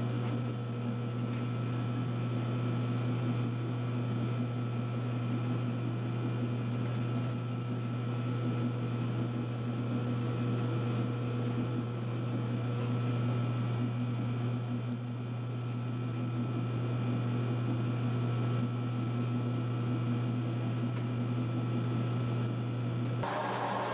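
Steady low hum of a running metal lathe, with faint ticks during the first several seconds. Near the end the sound turns brighter and harsher as the boring bar cuts the bore of a spinning turbocharger compressor housing.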